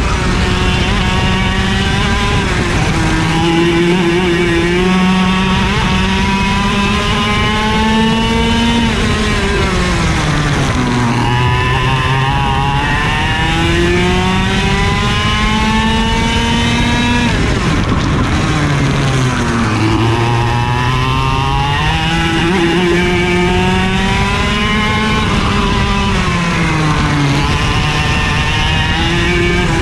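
IAME KA100 100cc two-stroke kart engine at racing speed, heard from on board: its pitch climbs steadily for several seconds as it accelerates down each straight, then falls off sharply as the kart slows for a corner, three times over.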